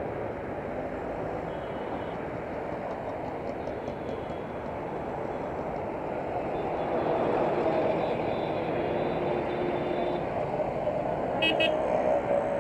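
Dense road-traffic noise heard from a moving scooter, with engines and tyre rumble throughout. Vehicle horns honk in the second half, held tones that come twice, a few seconds apart.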